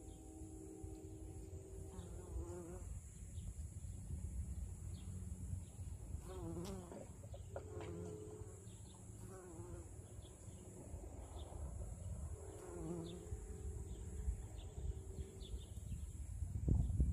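Bumblebee buzzing as it flies among white clover flowers: a low hum that comes and goes, steady for a few seconds at a time and wavering in pitch now and then, over a low rumble.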